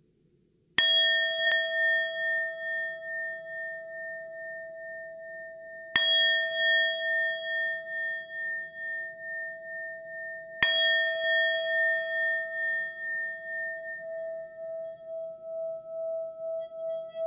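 A bell struck three times, about five seconds apart. Each stroke rings on for a long time with a slow wavering pulse, and the last stroke is still ringing at the end.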